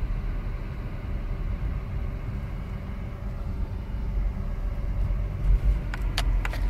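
Low, steady rumble of a car's engine and tyres heard from inside the cabin while driving slowly, with a few sharp clicks about six seconds in.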